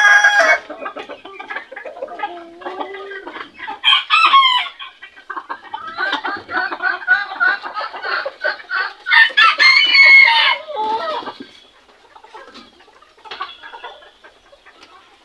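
Bantam chickens (Cochin and frizzle) clucking and calling, with a loud rooster crow about nine seconds in; the calls fade to faint clucks for the last few seconds.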